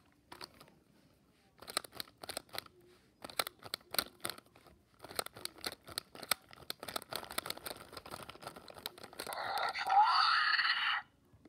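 Toy dinosaur being handled in a fleece blanket: scattered rustling and clicking, then near the end a loud raspy screech lasting about two seconds that cuts off suddenly.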